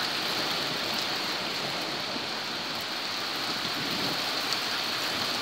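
Heavy rain pouring down in a thunderstorm, a steady even hiss of rain on surfaces heard through a half-open window.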